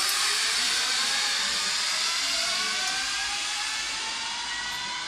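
Zipline trolleys running along the steel cables as two riders speed away: a rushing whir with a whine that slowly rises in pitch and gradually fades.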